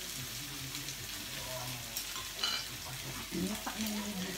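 Meat sizzling steadily in a frying pan on a tabletop gas burner while it is stirred, with a few light clicks of utensils against the pan.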